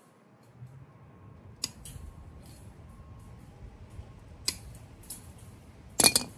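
Hand cutters snipping through the steel wire of wire fencing: a few sharp snaps, the loudest near the end.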